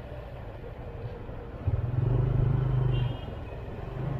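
Motor vehicle engine and road noise while driving through town streets: a steady low rumble, with a louder engine hum for about a second and a half from just before two seconds in.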